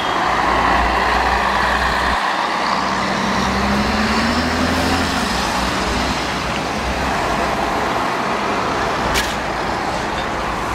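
City bus driving past close by, its engine rising in pitch as it pulls away, over steady road-traffic noise. A short click about nine seconds in.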